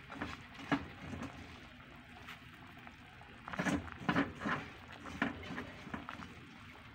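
Faint liquid sounds and scattered soft knocks and rustles from a pot of chicken broth heaped with malunggay leaves. They are loudest around four seconds in.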